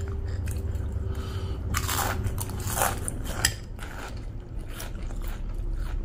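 Close-up crunching and chewing of crunchy red snack sticks, with a run of sharp crunches loudest about two and three seconds in.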